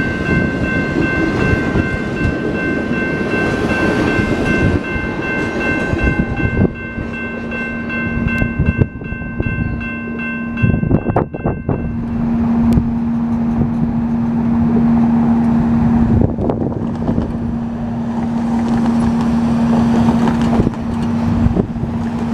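Passenger train cars rolling past with a steady rumble of wheels on track and several steady high ringing tones over it. About twelve seconds in the ringing stops abruptly, leaving a steady low hum and rumble.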